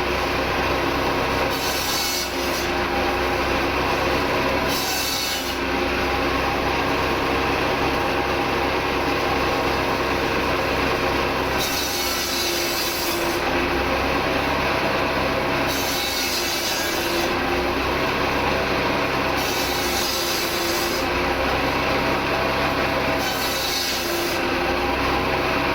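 Standard Fordson tractor engine running steadily, with a rasping, rubbing mechanical noise that swells every two to four seconds.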